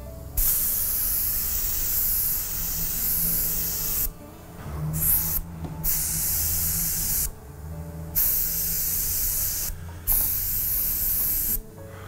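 Airbrush spraying white fluid acrylic paint: a high air-and-paint hiss that starts and stops five times as the trigger is worked. The first burst is the longest, about three and a half seconds, the second is brief, and the others last about one and a half seconds each.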